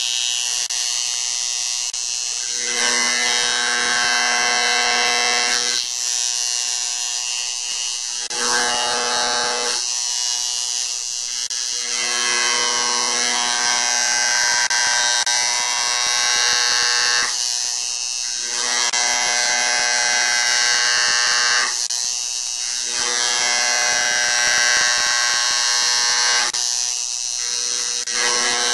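Electric palm engraver, a 3200-strokes-a-minute mains-powered cutter, buzzing steadily as its point cuts into a brass plate. The buzz fills out and thins again every few seconds.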